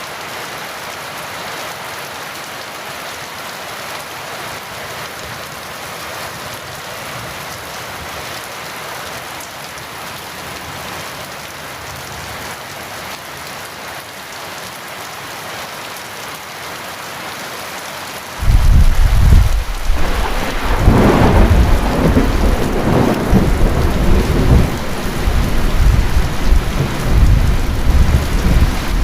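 Heavy rain falling steadily. About two-thirds of the way through, thunder breaks in suddenly, loud and low. It keeps rumbling to the end, peaking a few seconds after it starts.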